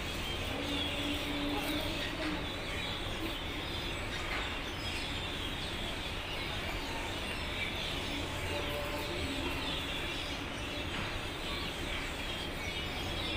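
A dense chorus of many small birds chirping, short calls overlapping without a break, over a steady low background rumble.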